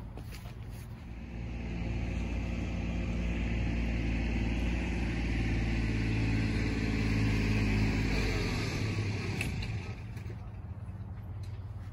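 Engine of a passing motor vehicle: a low hum that grows louder over several seconds, then drops in pitch and fades away about eight and a half seconds in, over a steady hiss.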